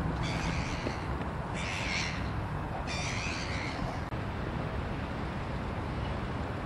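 Crow cawing three times in quick succession, each harsh caw under a second long, over a steady low background rumble.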